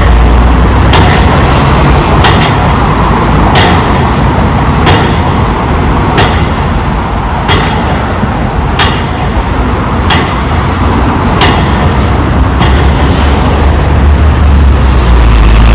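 Pile driver hammering, loud, with a sharp blow a little over a second apart, about ten blows in all, over a steady deep rumble.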